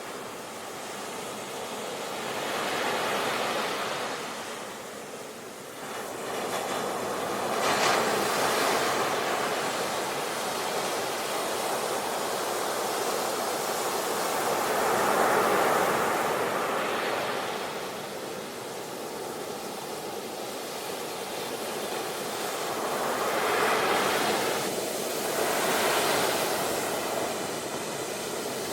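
Ocean waves breaking and washing in, a continuous rush of surf that swells and eases every several seconds.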